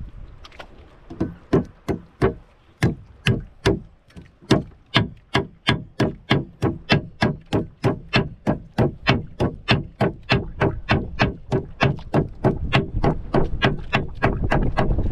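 A steady series of sharp knocks or strikes, starting about a second in and soon coming about three a second.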